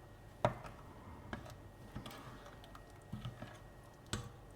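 Spoon stirring curry in a pot, making a few irregular light knocks and clicks against the pot.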